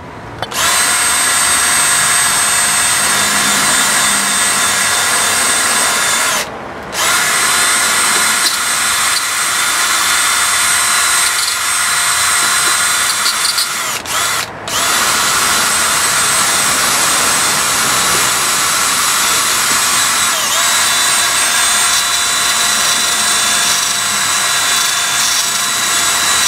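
Makita cordless drill running at a steady high whine in three long spells, stopping briefly twice, as it scrubs the rust off a car's rear wheel hub, cleaning the hub face before a wheel spacer goes on.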